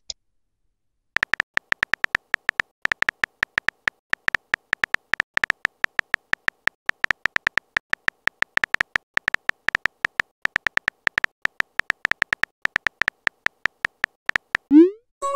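Texting app's simulated keyboard tap sounds: a fast, uneven run of short electronic clicks, several a second, one for each letter as the message is typed. A short rising whoosh follows near the end as the typing stops and the message is sent.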